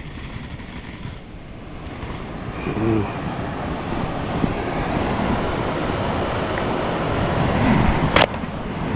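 Steady rushing of wind across the microphone, building over the first few seconds and then holding. A single sharp click sounds near the end.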